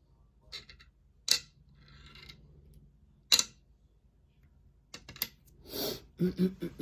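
Small metal parts of a padlock clicking and clinking against a hard surface as the lock is taken apart: a few sharp clicks, the two loudest about two seconds apart, then a cluster of lighter taps and rattles near the end.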